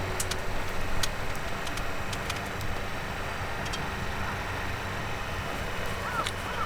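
Steady rushing wind noise with scattered sharp crackles, and a crow cawing a couple of times near the end.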